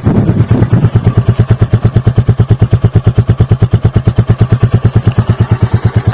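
Royal Enfield Classic 350's single-cylinder engine idling through its stock factory silencer: a steady, even exhaust thump of about a dozen beats a second.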